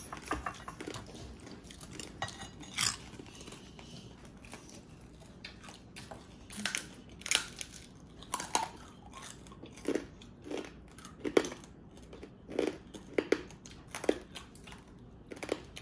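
Crispy fried pork chicharon (deep-fried pork skin) being bitten and chewed, a series of sharp crunches that come about once a second from the middle on.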